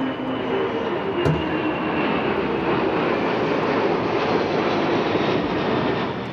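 Boeing E-4B (747-200B) with four General Electric CF6-50 turbofans passing low overhead: steady, loud jet engine noise with a faint thin whine that sinks slightly in pitch. A single short knock a little over a second in.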